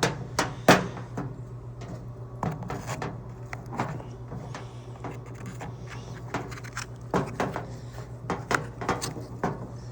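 Irregular clicks and knocks of tools and parts being handled, over a steady low hum.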